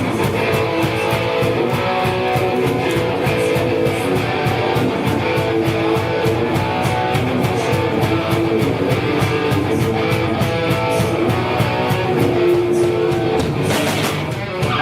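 Live rock band music: guitars playing over a steady drum beat, with a shift into a heavier section near the end.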